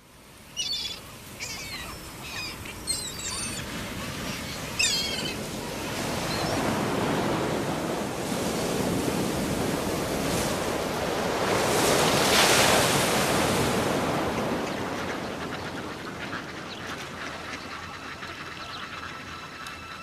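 Birds calling, several short cries in the first five seconds, over the sea. Then waves surge in a rushing wash that swells to its loudest about twelve seconds in and slowly eases off.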